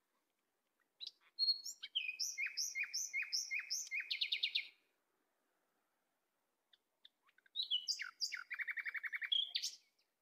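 A songbird singing two phrases, each a run of repeated high notes that ends in a fast trill, with a pause of a few seconds between them.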